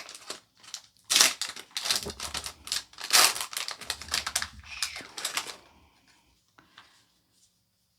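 Scissors cutting and crinkling the plastic-foil wrapping of Pokémon trading-card packaging, a quick run of sharp crackles and snips that stops about six seconds in, followed by a few faint clicks.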